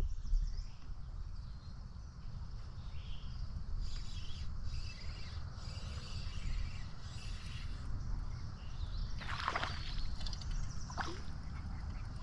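Water sloshing around a fishing kayak on a river, over a steady low rumble, with a louder splash-like rush about nine seconds in and a smaller one a second later.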